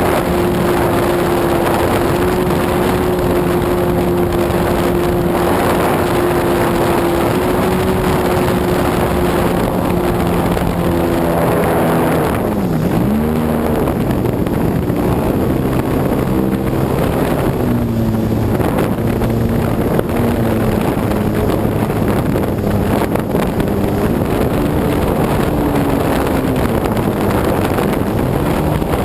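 Saito 65 four-stroke glow engine on a radio-controlled plane in flight, its steady drone shifting in pitch with throttle and distance, with a sharp fall and rise in pitch about twelve seconds in as the plane passes by. Wind buffets the microphone.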